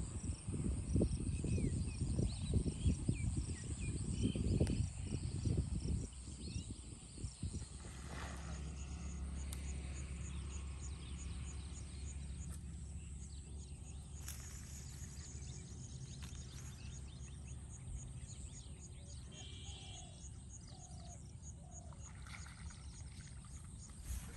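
Outdoor pondside ambience: an uneven low rumble for the first six seconds or so, then a steady low hum, with faint insect chirping throughout and a brief bird call about two-thirds of the way in.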